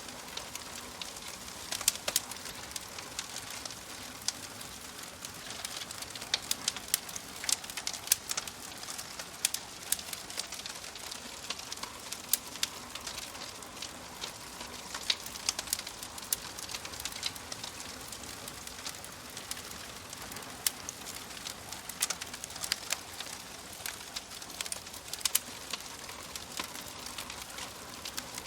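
Crackling fire: a steady soft hiss with frequent sharp, irregular pops and snaps.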